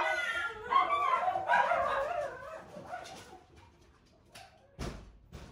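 Miniature schnauzer whining and yipping in wavering, high cries that fade out about three seconds in, followed by a sharp knock near the end.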